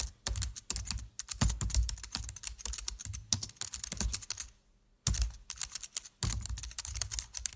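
A fast clatter of small clicks and knocks with low thuds, coming in bursts and breaking off for about half a second near the middle.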